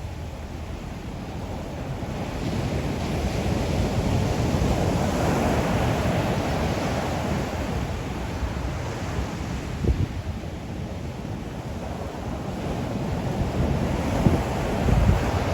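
Sea waves washing onto the shore, the surf swelling over the first few seconds, easing, and building again toward the end. Wind buffets the microphone in low thumps about ten seconds in and near the end.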